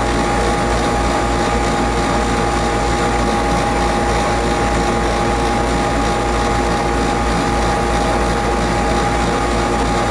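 Heating system running with a steady mechanical drone, a deep low rumble and a few steady hum tones. No bang or knock is heard.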